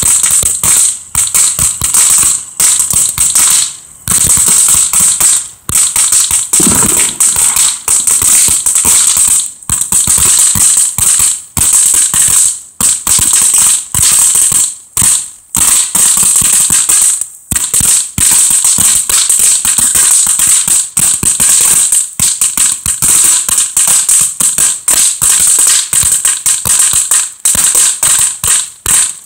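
"Noisy Boys" crackling firework going off with a loud, dense run of sharp snaps, broken by brief pauses every second or two.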